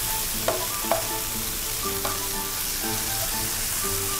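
Sliced dried shiitake and shredded ginger sizzling steadily in hot olive oil in a wok while being stirred with a wooden spatula, with two sharp spatula knocks against the pan about half a second and a second in.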